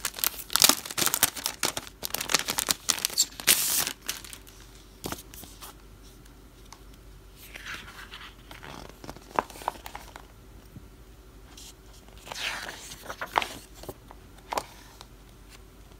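Packaging crinkling and tearing for the first four seconds as a photo book is pulled from its plastic sleeve and paper cover, then a few soft swishes and flicks of the book's pages being turned.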